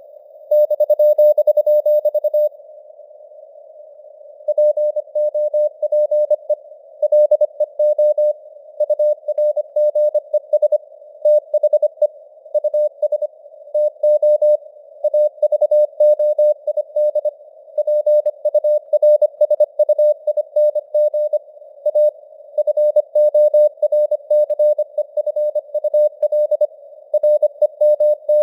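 Morse code (CW) sent at 25 words per minute as a single steady pitched tone keyed rapidly on and off, over a band of simulated radio hiss, its strength fading up and down. About half a second in, a long unbroken tone lasts about two seconds, followed by about two seconds of hiss alone before the keying resumes.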